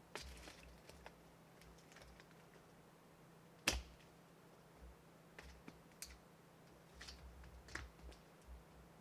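Scattered faint clicks and ticks over a quiet background, with one sharper click a little over a third of the way in.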